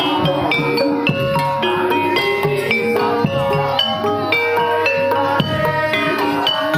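Javanese gamelan music accompanying a kuda kepang horse dance: bronze metallophones strike ringing melodic notes over steady drum beats.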